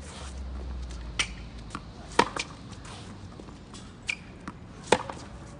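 Tennis balls struck by rackets and bouncing on a hard court: a series of sharp pops during a rally, the loudest about two seconds in and again near the end. A low rumble runs under the first second and a half.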